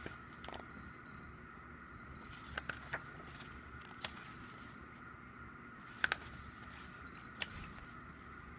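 Pages of an album photobook turned by hand: a few short, sharp paper flicks and snaps, spread unevenly, over a faint steady high hum.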